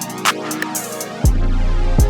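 Electronic background music; about a second in, a heavy bass line with a drum-machine beat comes in.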